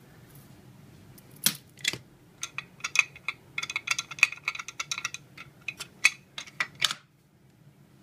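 Clear plastic lid of a KRUPS blade coffee grinder being pulled off and handled: a rapid, irregular run of sharp plastic clicks and rattles that stops abruptly near the end. The motor is not running.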